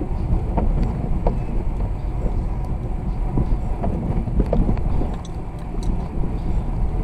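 Vehicle driving through snow: a steady low rumble of road and engine noise, with scattered light clicks.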